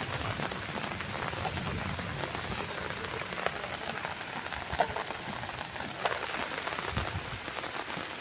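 Hail falling steadily: a dense, even hiss of many small hailstone hits, with a few louder single strikes scattered through.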